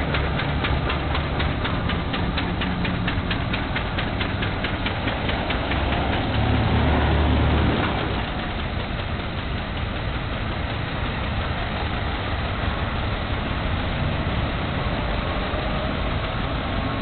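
Antique cars' engines running as the cars drive slowly past, with a fast, even clatter of engine strokes. A louder low rumble comes about six to eight seconds in as one car passes close, then a steadier mix of engine and road noise.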